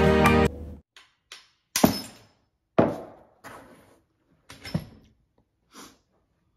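Background music cuts off about half a second in, followed by a series of separate knocks and clinks of hard objects being handled and set down on a wooden table, the loudest just under two seconds in.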